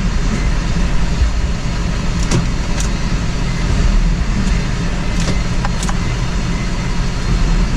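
Steady low engine rumble with a few faint light clicks, from the RX-7's rotary being cranked over or the jumper truck's diesel idling beside it.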